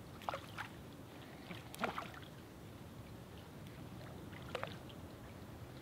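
Shallow water sloshing faintly, with a few short splashes and clicks: about a third of a second in, just under two seconds in, and around four and a half seconds. These come from small, lively fish being let go by hand into the water.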